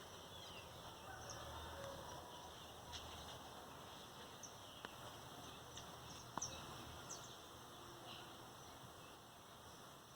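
Faint outdoor ambience with scattered short bird chirps over a steady hiss, and a sharp click about six seconds in.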